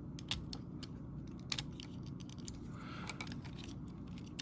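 Sparse, irregular small plastic clicks and taps from an MPM Ratchet Transformers action figure being handled, over a low steady hum.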